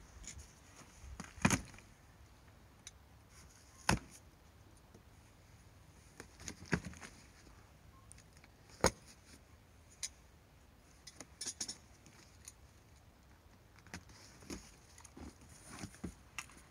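A stapled cardboard shipping box being opened, its metal staples pulled out with pliers. Irregular sharp clicks and metallic clinks come every second or two, with a few quicker clusters.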